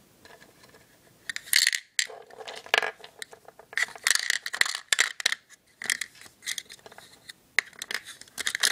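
Small polymer clay charms clicking and clattering against each other and a clear plastic compartment box as they are handled and rummaged through. The clicks come in irregular clusters, starting about a second in.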